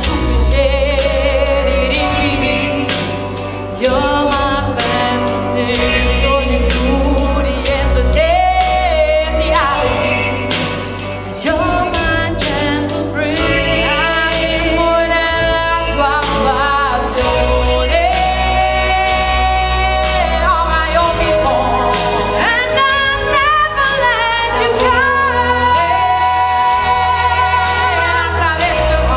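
Live pop ballad sung by a female and a male vocalist over a band with a heavy, steady bass line.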